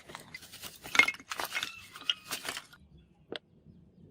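Rusted iron chain links clinking against each other as the chain is handled: a quick, uneven run of sharp metallic clinks with brief ringing, then one last clink about three seconds in.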